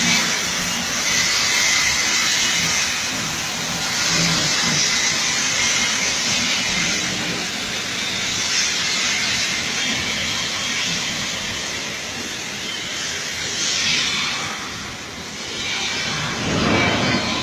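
CNC cutting torch cutting thick steel plate: a steady, loud hiss, with a louder rushing surge near the end.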